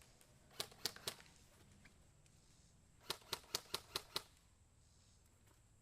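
Airsoft gun firing single shots as sharp clicks: three shots spaced about a quarter second apart near the start, then a quicker string of six shots about three seconds in.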